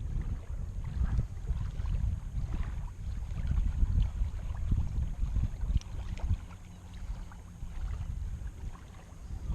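Wind buffeting the microphone outdoors: an uneven low rumble that swells and drops in gusts, with a few faint clicks over it.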